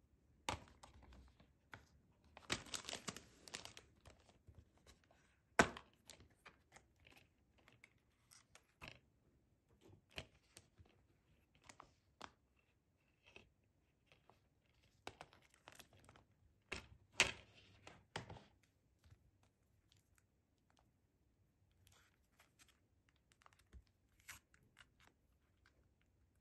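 Quiet handling of a plastic DVD case and its packaging: light pats on the case, scattered clicks and taps of hard plastic, and two longer stretches of rustling plastic, near the start and about two-thirds of the way through.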